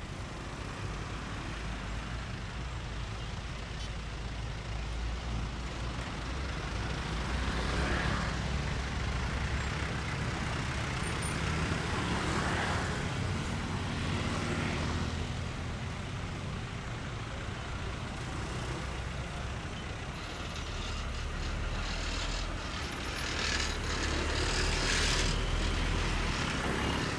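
Jammed road traffic: heavy truck engines idling with a steady low rumble, motorbikes running close by, and several brief rushes of noise in between.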